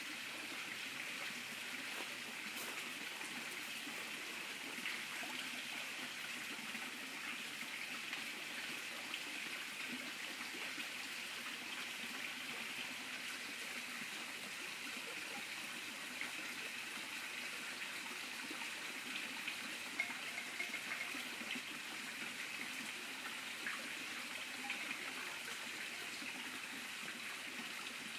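Steady trickling, bubbling water in a plastic tub holding koi, a constant even wash of sound with a few small ticks.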